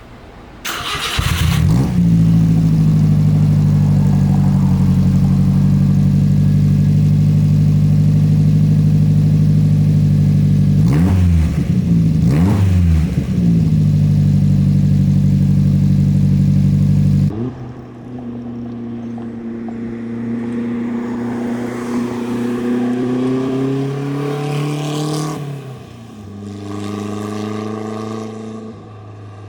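Subaru Sambar kei truck's four-cylinder engine through an aftermarket stainless Growler exhaust: it fires up about a second in and idles loud and steady, with two quick throttle blips just before halfway. Then the note changes abruptly to a quieter engine sound that rises in pitch as it accelerates, drops, and rises again near the end.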